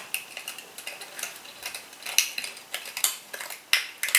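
Small hard-plastic clicks and light clatter from handling a small clear plastic box of spiral hair ties, irregular, several a second, sharper in the second half.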